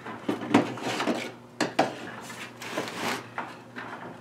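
Black metal wire baskets being shifted and set down on painted wooden fence pickets: a run of light knocks and clicks of wire on wood, with short scrapes between them.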